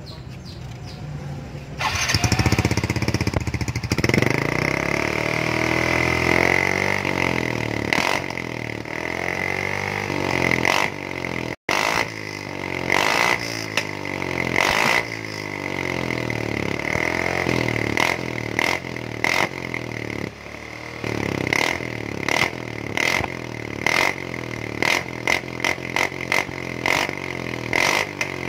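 Yamaha Mio J scooter's single-cylinder four-stroke engine, breathing through a bored-out stock muffler, comes to life about two seconds in and is revved up and down, with a run of quick throttle blips in the second half. The exhaust has a tinny, shrill note, tuned to stay fairly soft at idle and get loud only when the throttle is opened.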